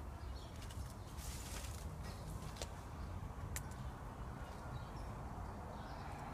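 Footsteps on a garden path, heard as scattered light clicks and taps over a steady low rumble on a phone microphone.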